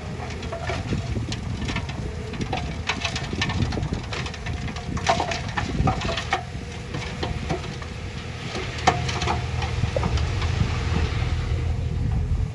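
Dump truck's engine running as its hydraulic hoist tips the loaded bed, with soil pouring out of the back in a string of knocks and clatters that die away about ten seconds in.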